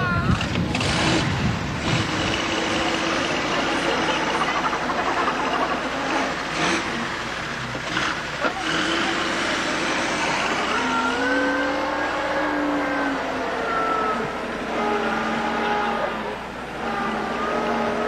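Engine of a vintage sedan running as the car drives slowly through a slalom of cones on grass, its pitch holding and shifting in steps in the second half. Voices in the background.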